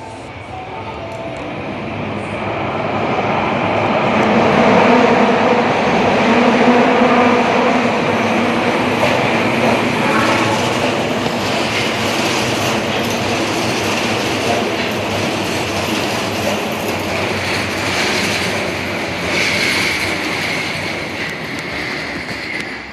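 Osaka Metro Tanimachi Line 22 series subway train running, its noise building over the first five seconds, holding, then easing off near the end.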